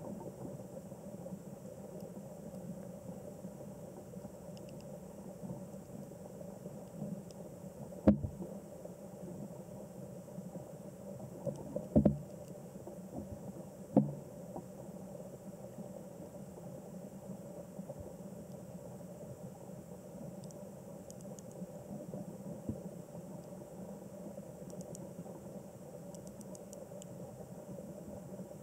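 Steady low, muffled hum and hiss, broken by sharp knocks: one about eight seconds in, a short cluster around twelve seconds, and one near fourteen seconds.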